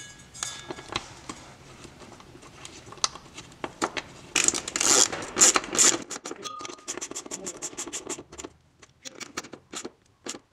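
Hand ratchet turning a 13 mm socket on an extension, clicking in quick runs with short pauses as the driveshaft carrier's mounting bolts are tightened. Before that, metal bolts and washers scrape and clink as they are fitted, with a louder burst of rapid scraping and clicking about halfway through.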